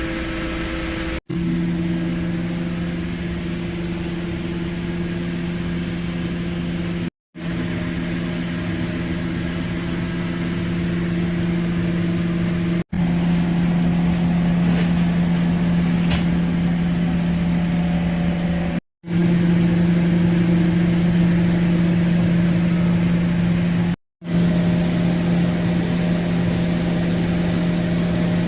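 A kitchen appliance's fan motor humming steadily with a low tone over a soft hiss, broken by about five brief, sudden dropouts to silence.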